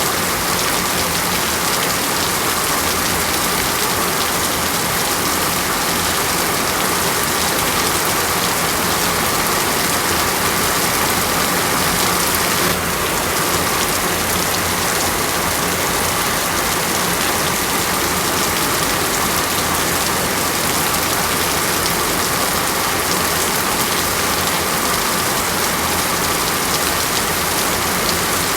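Steady, even rain falling on a surface, a dense unbroken hiss.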